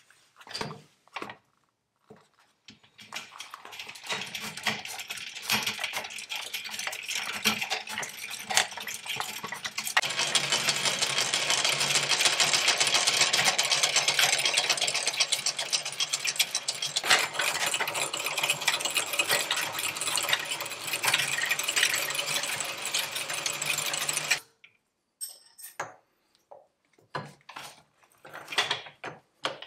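Early-1900s W.F. & John Barnes No. 5 velocipede lathe driven by its foot pedals: the pedal cranks, chain and flywheel running with a fast, dense mechanical rattle. It builds over the first few seconds, runs louder and steady from about ten seconds in, and stops abruptly about twenty-four seconds in, leaving a few scattered clicks.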